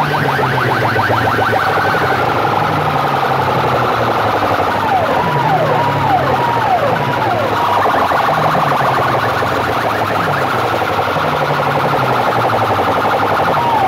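Electronic siren and alarm-style effect tones played very loud through a bank of horn loudspeakers. Fast warbling pulses alternate with a run of repeated falling swoops, over a low pulsing beat.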